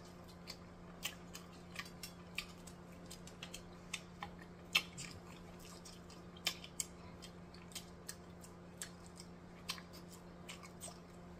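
Close-miked chewing of a bite of conch fritter: wet mouth clicks and smacks, a few a second at irregular intervals. A faint steady hum runs underneath.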